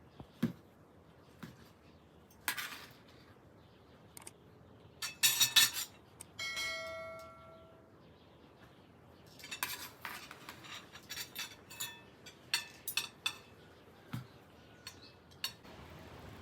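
Metal dishes and utensils clinking and clattering in scattered strikes, loudest in a quick cluster about five seconds in. Just after it, a struck metal vessel rings with a clear tone that dies away over about a second and a half, and a run of lighter clinks follows in the second half.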